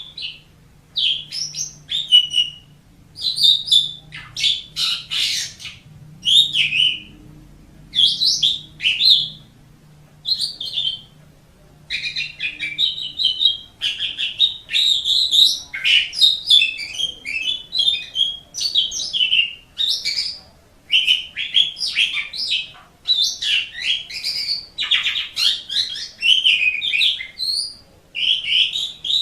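Asian pied starling (jalak suren) singing a varied run of quick, pitch-bending notes. The notes come in short phrases about a second apart at first, then run together into a near-continuous stream from about halfway through.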